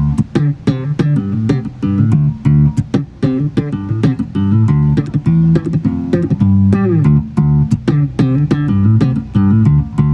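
Electric bass guitar played through an effects pedal and bass amp during a soundcheck: a steady stream of sharply plucked notes with a few sliding notes.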